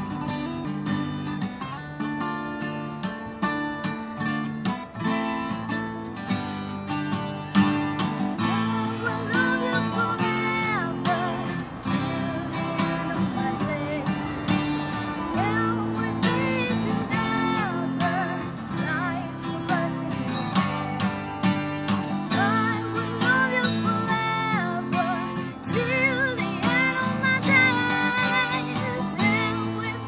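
Twelve-string acoustic guitar strummed in steady chords, with a woman's singing voice coming in at about eight seconds and carrying the melody over it.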